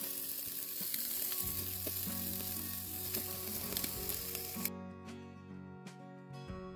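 Çöp şiş meat skewers sizzling over hot charcoal on a grill grate, a dense steady hiss that cuts off abruptly about two-thirds of the way through. Background music runs underneath and is left on its own after the sizzle stops.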